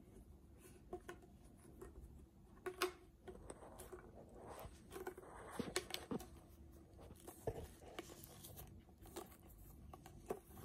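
Ribbed plastic pop tubes being bent, twisted and pushed together by hand: faint scattered clicks and crinkling of the corrugated plastic.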